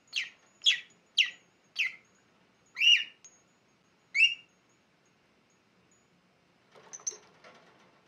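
Rosy-faced lovebird giving six sharp, shrill chirps, each falling in pitch, over the first four and a half seconds. A brief, quieter scuffling sound follows near the end as the bird moves across the cage.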